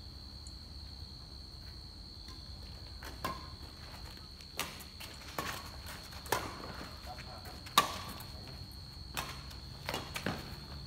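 Badminton rally: sharp racket strikes on the shuttlecock, about eight of them at uneven intervals starting about three seconds in, the loudest near the end, over a steady high-pitched whine.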